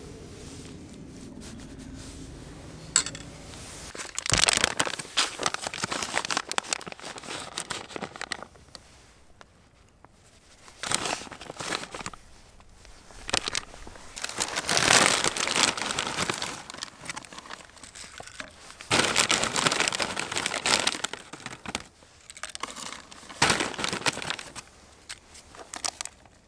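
Plastic food bags crinkling and rustling in about five bursts, the first starting about four seconds in, as shredded cheese and corn chips are shaken out of them.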